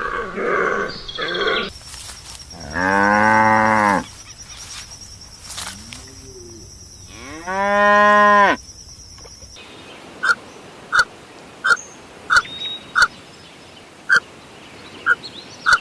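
Cow mooing: two long, loud moos a few seconds apart with a faint short one between. Near the middle the recording changes to a run of short, high, evenly spaced pips.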